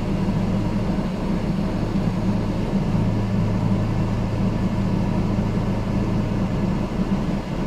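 Engine idling with a steady low hum, a little stronger from about three seconds in.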